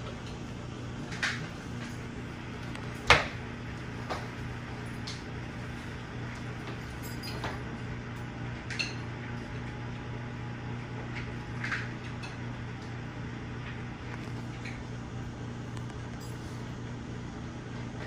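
Casablanca Lady Delta ceiling fan running, with a steady low motor hum and air noise. Scattered light clicks and clinks sound now and then, the loudest about three seconds in.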